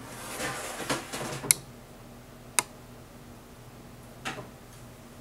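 Wide metal putty knife scraping wet acrylic gesso across gatorboard for about a second and a half, then a few sharp clicks spaced a second or more apart.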